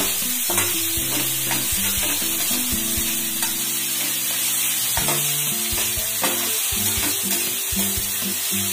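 Chopped onions and green chillies frying in oil in a nonstick kadhai, sizzling steadily while a steel spatula stirs them round the pan, with repeated short scrapes and knocks of the spatula against the pan.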